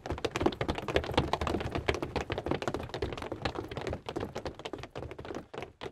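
Many footsteps hurrying off, a dense irregular patter of taps and thuds that thins out and fades away near the end: a group of soldiers spreading out to search.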